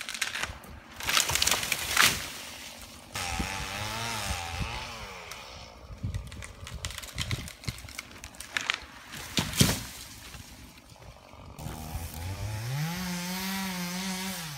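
Chainsaw running in several stretches, revving up and holding at high revs as it cuts. Between the cuts come a few loud, sharp cracks and crashes: a felled tree's trunk breaking and coming down.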